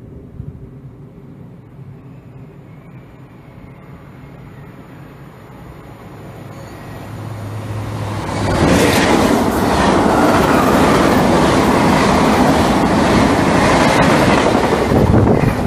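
TGV high-speed trainset approaching and passing through the station at speed without stopping. It is a faint distant rumble at first, grows over a couple of seconds, and from about eight and a half seconds in is loud: the din of wheels on rails and air as the train goes by close.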